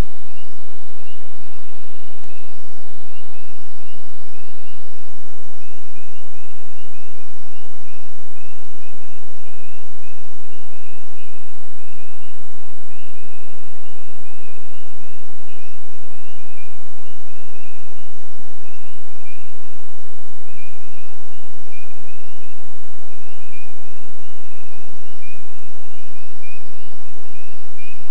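Steady loud hiss from a trail camera's microphone, with an unbroken run of short, high chirps, two or three a second, from a night-calling animal in the woods.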